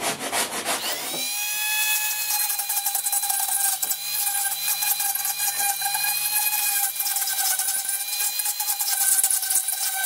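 Electric drill, wrapped in window screen and string, spinning up about a second in to a steady high whine and running on as it carves, with a rough scraping from the bit on the work. A rough sanding rub fills the first second.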